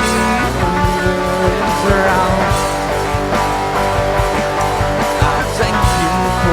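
Rock band playing an instrumental passage: guitars and bass over a steady drum beat.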